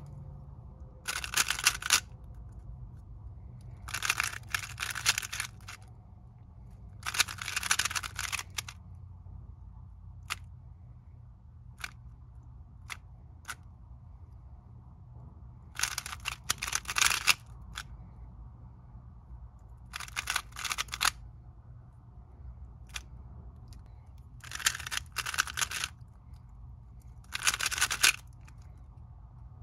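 Stickerless 3x3 speed cube being turned by hand: about seven quick bursts of rapid clacking layer turns, each a second or two long, with a few single clicks of lone turns in between.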